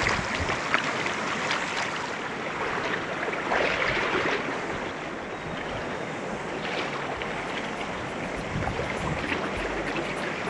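Shallow, rocky stream riffle rushing and burbling: a steady wash of running water that swells louder twice in the first half. Low wind rumble on the microphone joins in the second half.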